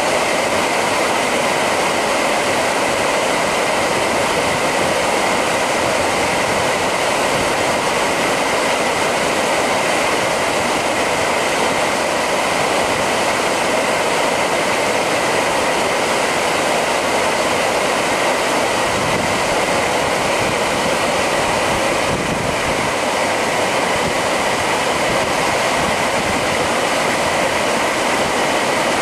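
Steady, even rush of water flowing down a narrow concrete canal.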